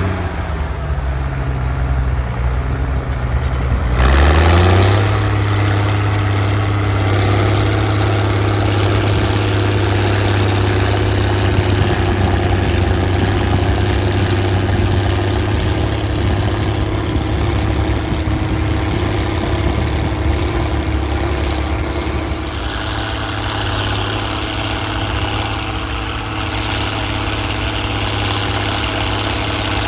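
Straight-piped Case IH 1056 XL tractor's six-cylinder diesel. The revs drop at first, rise sharply about four seconds in, then hold steady as it pulls the plough.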